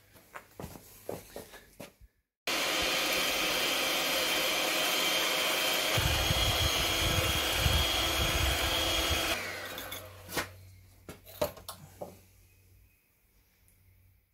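Electric hand mixer running at a steady whine, its beaters churning stone-cast powder and water into a paste in a bowl. It cuts in about two seconds in, with a heavier low churning from about six seconds. It is switched off about nine seconds in and winds down, followed by a few light knocks and taps.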